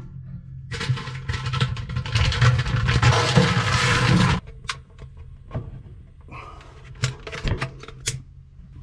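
Paper wrapper of a Duraflame firelog crinkling as it is handled in a wood stove's firebox, for about four seconds. Then a few separate sharp clicks and taps as the wrapper is lit with a long-nosed lighter.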